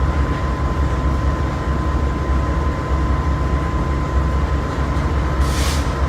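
A heavy engine running steadily with a deep low rumble and a thin constant whine over it. A short hiss breaks in about five and a half seconds in.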